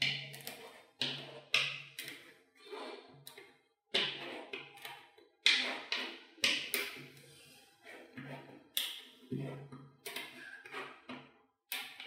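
Small magnetic balls clicking and snapping together as a chain of them is pressed onto a flat sheet of balls on a table: irregular sharp clicks and short rattles, about one or two a second.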